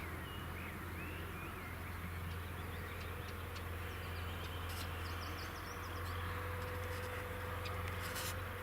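Birds chirping over a steady low mechanical hum, with a faint steady tone joining about three seconds in and a few light clicks.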